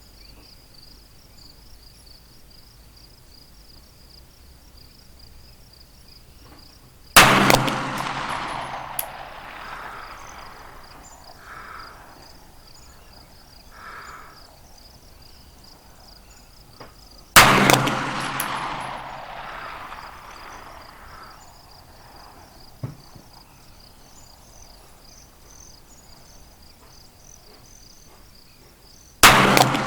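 Three pistol shots from a CZ pistol firing IMI ammunition, about ten seconds apart, each a sharp crack followed by a long rolling echo. A steady high insect buzz runs underneath.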